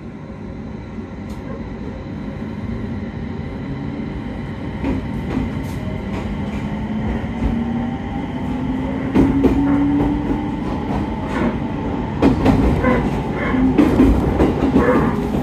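Train running and gathering speed, with a whine that rises slowly in pitch and wheels clicking over rail joints, louder and more frequent toward the end.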